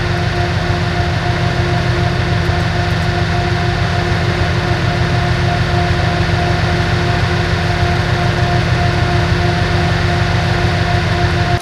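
Heavy machine engine, likely the grape harvester's, running at a steady pace: a loud, even drone with a held hum over it. It cuts off abruptly at the very end.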